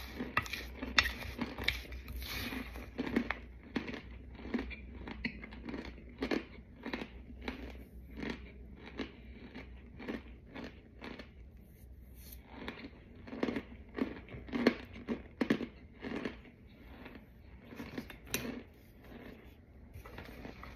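Close-up chewing of crunchy, chalky white chunks coated in powder: a steady run of sharp crunches about two a second, thinning out for a few seconds midway before picking up again.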